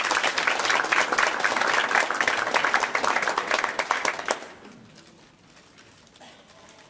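Audience applauding, a dense clapping that dies away about four seconds in.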